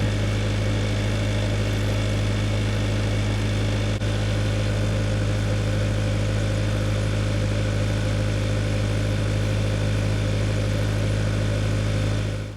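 An engine running at a steady speed, a constant low hum with no change in pitch, that cuts off suddenly at the very end.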